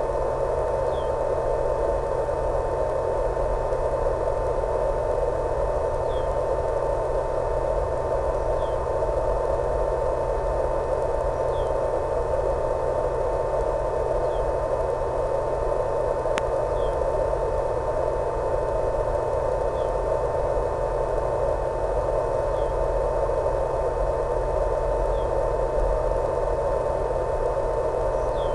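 Steady static hiss from an analog FPV video link's audio channel, with a constant mid-pitched tone and a low hum underneath. Faint high chirps come every couple of seconds, and there is a single sharp click about halfway through.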